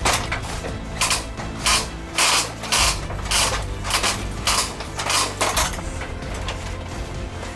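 A hand-worked ratchet mechanism being cranked in about ten quick strokes, roughly two a second, over a steady low hum.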